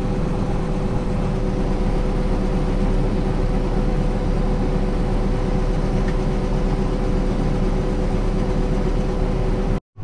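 Combine harvester running, heard from inside its cab while the unloading auger empties shelled corn into a grain cart: a steady machine drone with a low rumble and a couple of steady humming tones. It cuts off abruptly just before the end.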